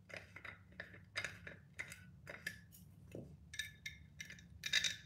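Rapid, irregular small clicks and clinks of a knob and its fittings being worked onto a metal-rimmed tempered-glass pot lid, with a louder cluster of clinks near the end.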